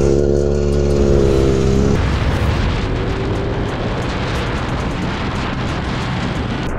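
Motorcycle engine held at high revs, a steady drone as the bike pulls away hard. About two seconds in it cuts to heavy wind rush over the microphone of a motorcycle travelling fast, with the engine buried beneath.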